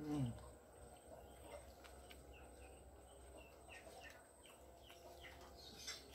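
A short hum falling in pitch at the very start, from the man eating. Then faint birds chirping over quiet eating and chewing sounds.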